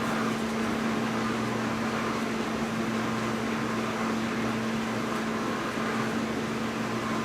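Steady hum and hiss of a running household appliance, with one constant low tone and no change.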